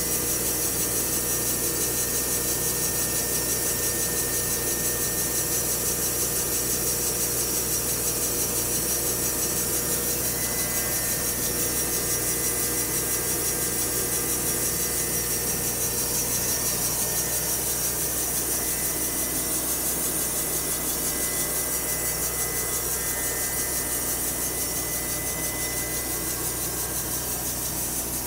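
Electric portable band sawmill (Timber Harvester) running, its band blade sawing steadily through a log. The sound eases off slightly near the end.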